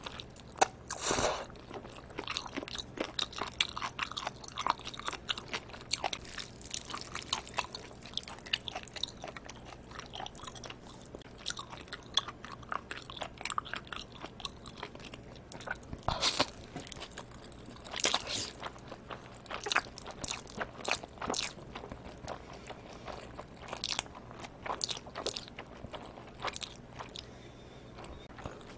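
Close-miked eating sounds: chewing and biting live octopus with cold bibim noodles, many small wet clicks and smacks, and a few louder bursts about a second in, around 16 seconds and around 18 seconds.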